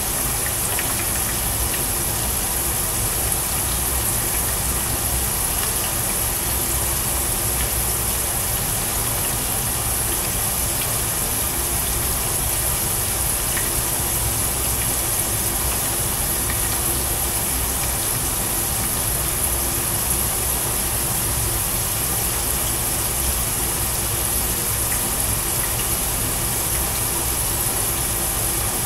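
Steady sizzling of a batch of french fries deep-frying in hot oil in a pan on a gas burner, a constant hiss over a low steady hum.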